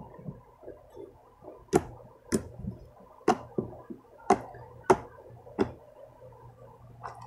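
Homemade white slime being pressed and poked by hand on a tabletop, giving six sharp pops about a second apart.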